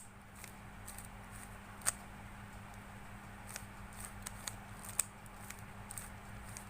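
A 3x3 Rubik's cube being turned through a move sequence by hand: a string of irregular sharp plastic clicks as the layers snap round, over a faint steady hum.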